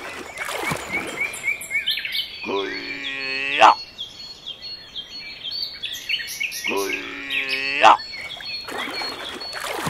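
Small birds chirping over and over. Twice, about four seconds apart, a louder drawn-out pitched sound of about a second cuts in and ends with a sharp snap.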